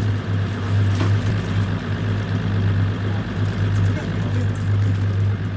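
Steady low machine hum, like idling engines, with a faint click about a second in.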